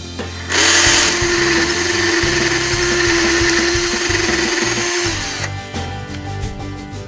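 Electric drill running steadily for about five seconds, boring out a wire's ring terminal so it will fit over the starter solenoid post. It starts about half a second in and stops sharply.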